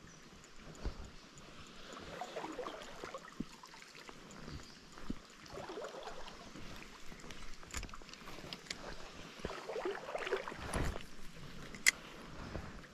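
River water running and splashing, with a few light knocks and one sharp click near the end.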